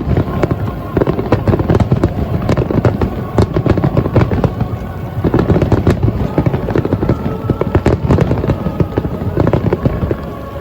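Fireworks display, shells bursting and crackling in rapid, dense succession.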